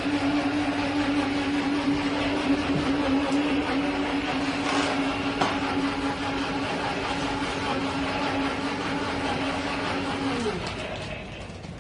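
A small motor humming steadily at one pitch, then winding down with a falling pitch and stopping about ten seconds in.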